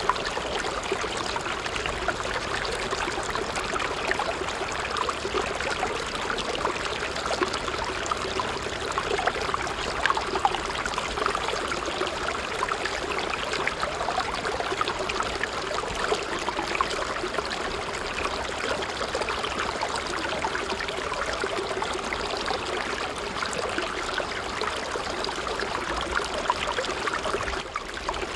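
Water from a miniature water pump pouring and trickling steadily, with a brief drop-out near the end.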